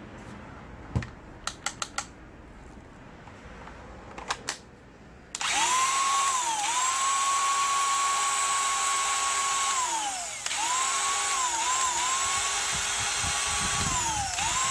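A few sharp clicks, then about five seconds in, the brushed motor of a DeWalt DCG412 cordless angle grinder, fitted with new carbon brushes, spins up to a steady high whine. Its pitch dips briefly a few times, and it winds down and starts again once near the middle.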